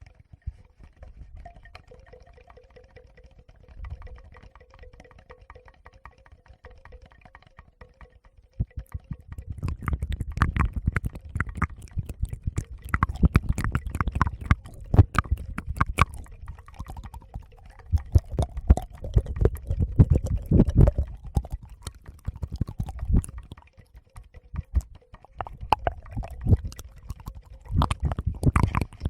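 Close-miked touching of a Tascam recorder: fingers tapping and rubbing on it, giving dense crackling clicks and heavy low thumps. It starts about nine seconds in after a quieter stretch and pauses briefly near the end.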